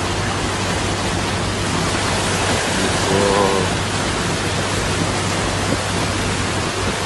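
Steady rush and splash of floodwater thrown up by a vehicle driving along a flooded road, over a low steady hum.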